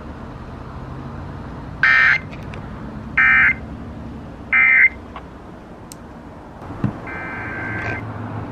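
Emergency Alert System SAME header: three short, loud bursts of warbling digital data tones about a second apart, the coded header that opens a new emergency alert, here a fire warning. A fainter steady tone about a second long follows near the end, over low steady background noise.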